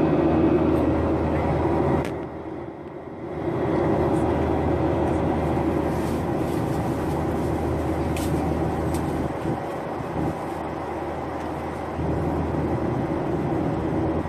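Airliner cabin noise: the steady drone of the plane's engines and air, heard from inside the cabin, with abrupt jumps in level about two seconds in and again near the end.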